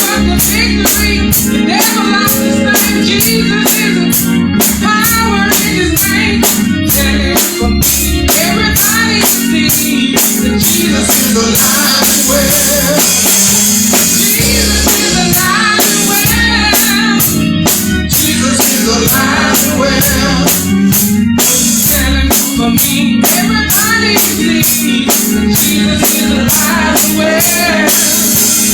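Live praise and worship music with singing over a drum kit and guitar, with a steady beat.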